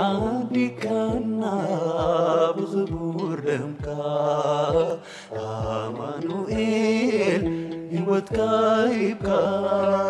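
Music of a Tigrinya Orthodox mezmur (hymn): a melodic line over a steady beat of low drum hits about twice a second.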